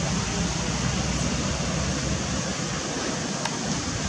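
Steady outdoor rushing noise, like wind on the microphone, with one faint click about three and a half seconds in.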